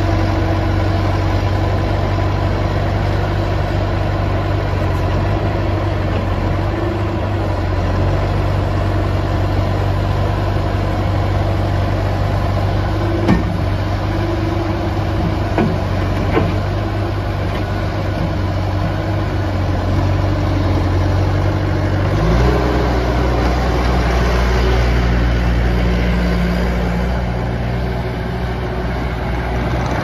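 Bobcat T300 compact track loader's 81 hp Kubota diesel engine idling steadily, with a few brief light knocks partway through. About 22 seconds in, the engine note steps up to a higher speed and stays there.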